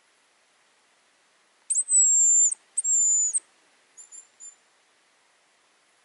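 Hazel grouse decoy whistle blown close by: two long, high, thin whistles that fall slightly in pitch, then two short notes, imitating the hazel grouse's call to lure a bird in.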